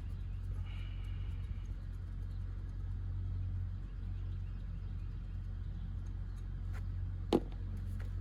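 Steady low hum in the background, with one sharp metallic click about seven seconds in as a wrench works loose one of the 8 mm bolts on the water pump pulley.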